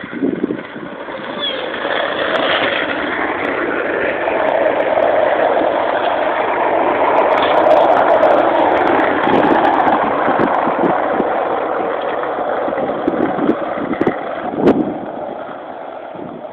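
Skateboard wheels rolling fast over asphalt down a hill, mixed with wind on the microphone: a steady rushing noise that builds to its loudest about halfway through and eases off toward the end. A sharp knock sounds near the end.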